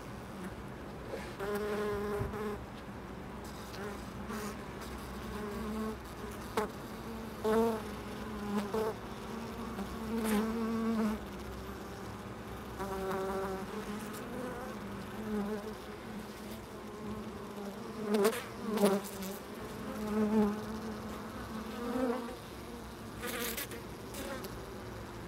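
Honeybees buzzing at the hive entrance, with single bees flying close past in a string of short pitched buzzes that swell and fade. The loudest passes come about three-quarters of the way in, with a few faint clicks between them.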